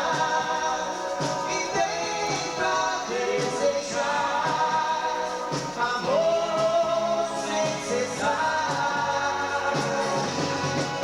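A dance band playing a song live, with sung vocals over the instruments.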